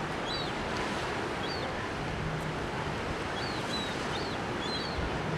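Steady wash of ocean surf, with a young seagull's repeated short, high peeps over it.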